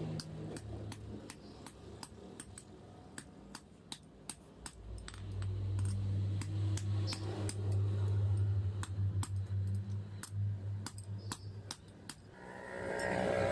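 Light, evenly paced hammer taps on metal, about three a second, with a steady low hum joining in for several seconds midway.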